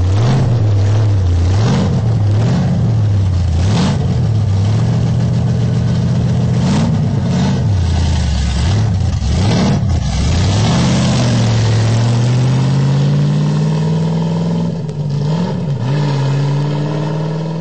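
Ford F-100 pickup's 258-cubic-inch Ford Y-block V8, revved up and down repeatedly, then pulling in one long steady rise in engine speed near the end.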